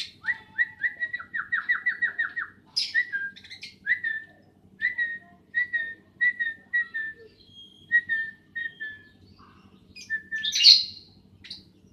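Pet lovebirds chirping: a quick run of short chirps, then single chirps about every half second, broken by two louder shrill calls, one about three seconds in and one near the end.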